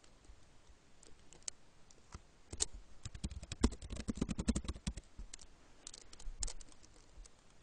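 Typing on a laptop keyboard: a quick run of key clicks in the middle, with a few scattered keystrokes before and after.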